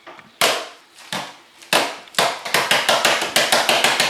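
A delivery box being opened: a run of sharp knocks, spaced out at first, then quickening to about five a second.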